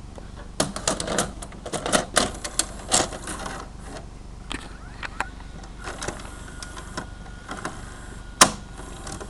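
Irregular clicks and clatter of small hard plastic and metal parts being handled, as when working inside a DVD/VCR combo player. The clicks come thickest in the first few seconds, with one sharp, loud click near the end.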